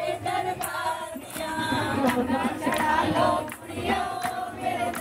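A group of devotees singing a devotional bhajan together, with a sharp regular beat about twice a second.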